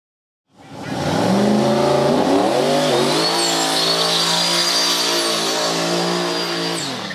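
Drag-racing GMC S-15 pickup doing a burnout. The engine fades in about half a second in, revs up and is held high while the spinning rear tyres squeal, then the revs drop right at the end.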